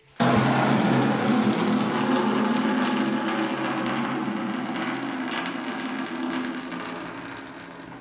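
Water gushing out of an electric geyser's temperature-and-pressure relief valve as its lever is lifted to let the tank's pressure down. The rush starts suddenly and tapers off steadily as the pressure drops.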